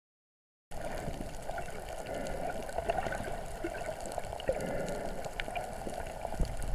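Muffled underwater ambience starting under a second in: a steady water hiss with low rumble and scattered faint clicks and pops.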